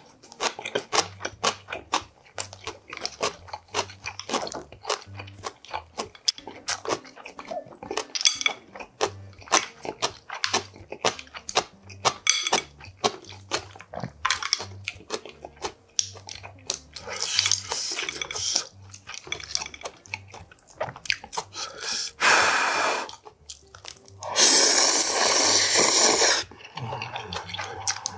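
Close-up chewing of a mouthful of gimbap and spicy ramen, with quick, irregular wet clicks. Near the end come two loud noodle slurps: a short one, then a longer one a couple of seconds later.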